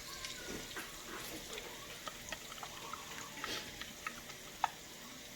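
Raw eggs being beaten in a bowl: faint liquid sloshing with irregular light clicks of the utensil against the bowl, and one sharper click near the end.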